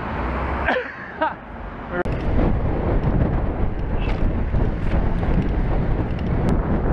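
Wind buffeting the microphone of a handlebar-mounted camera on a moving bicycle, a loud, steady rumble that starts abruptly about two seconds in, after a brief voice.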